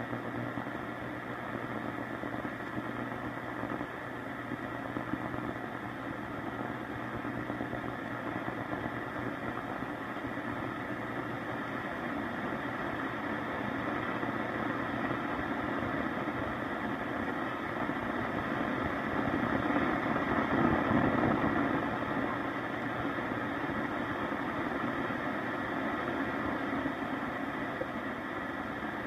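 Static and hiss from a 1942 Zenith 8S661 console radio as its dial is tuned between stations, with no station coming in clearly; the noise swells a little about twenty seconds in.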